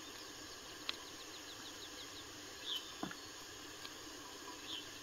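Faint rural outdoor ambience: a quick run of high ticking chirps about a second in, two short high chirps later, and a couple of sharp clicks.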